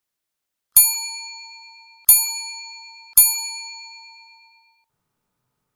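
Bright bell-like ding struck three times, about a second apart, each note ringing and fading away: a time-up chime marking the end of a countdown timer.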